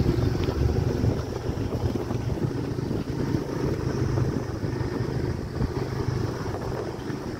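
Wind rushing over the microphone on a moving motorcycle, with its engine running steadily underneath.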